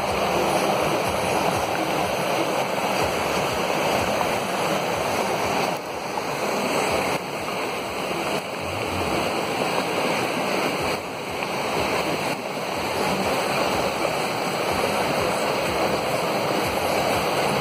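Steady rush of muddy floodwater pouring across the road and spilling off the rock face.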